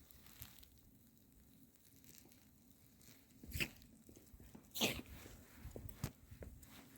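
Mostly quiet, with two short sharp sounds from a dog nosing in the snow about three and a half and five seconds in. Faint footsteps crunching in snow follow near the end.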